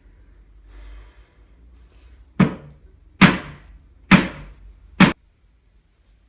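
Four loud impact hits, evenly spaced about a second apart, each with a short ringing decay. The last one cuts off abruptly.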